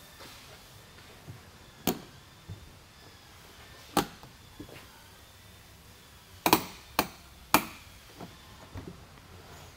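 Sharp clicks and snaps from the latches of a Fold-A-Cover G4 Elite tonneau cover being closed by hand and released, as the latch timing is tested. There are single snaps about two and four seconds in, then a quick run of four between about six and a half and seven and a half seconds, with fainter taps between.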